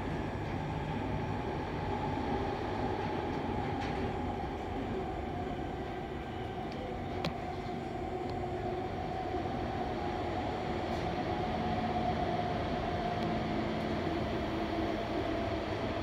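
Sydney Trains Tangara electric train running, heard from inside the carriage: a steady rumble with a whine that slowly drops in pitch. A single sharp click about seven seconds in.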